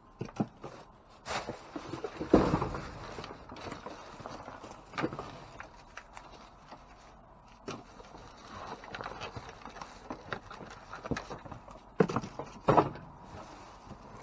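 Plastic trash bags being shifted and rummaged through in a dumpster, rustling and crinkling irregularly. A few knocks come through, the loudest about two seconds in and two more near the end.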